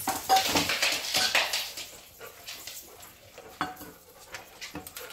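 Dry dog kibble clattering against a stainless steel bowl as it is handled and scooped. A dense rattle runs for about two seconds, then a few scattered clinks follow.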